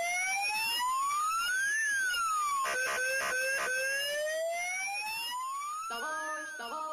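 A siren wailing, its pitch climbing slowly for about two seconds, dropping back and climbing again. A few short bursts cut in about three seconds in, and a tune of held notes comes in near the end.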